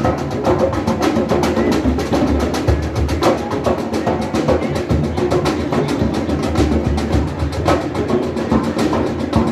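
Drums playing a steady, driving rhythm of rapid strikes.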